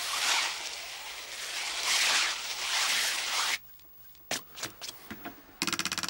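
Foley skiing sound: a red scouring pad rubbed in sweeps across a blue fabric sheet, a rushing scrape like skis on snow. It stops suddenly past the halfway mark; a few clicks follow, then a fast, even wooden rattle starts about a second before the end.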